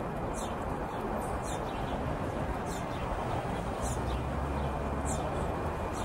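Hummingbird at a feeder: a low wing hum for about a second and a half starting about four seconds in, as the bird shifts its perch, with short high chirps repeating roughly once a second over a steady hiss.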